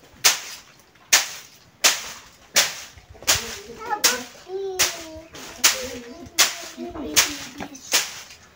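A stick beating a heap of dried bean plants to thresh the beans from the pods: sharp whacks at a steady pace, about three every two seconds.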